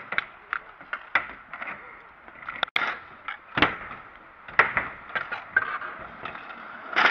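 Freestyle scooter clattering on a concrete skatepark ramp: wheels rolling and the deck knocking, a run of sharp knocks and clacks, the loudest about three and a half seconds in.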